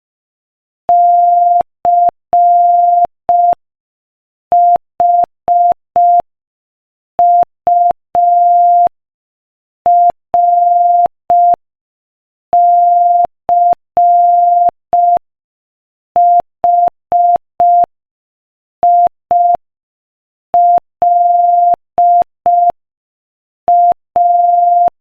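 Morse code sent at 5 words per minute as a single steady beep keyed on and off into dots and dashes, the letters separated by short gaps.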